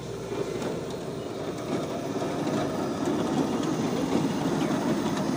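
Onion leaf cutting machine running just after being switched on, making a steady mechanical noise that grows a little louder.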